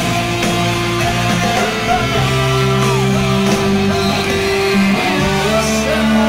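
Live rock band at full volume: amplified electric guitar from a double-neck guitar holding sustained notes, with a few bent notes, over the rest of the band.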